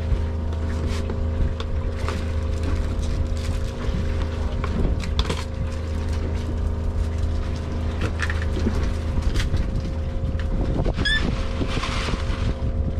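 Boat's outboard motor idling steadily, with scattered knocks from gear being handled on board and a brief high chirp about eleven seconds in.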